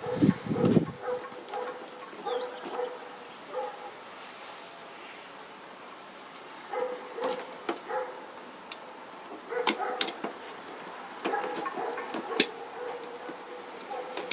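Figure box and plastic packaging being handled: a heavy thump at the start, then scattered sharp clicks and taps, with clusters of short squeaks.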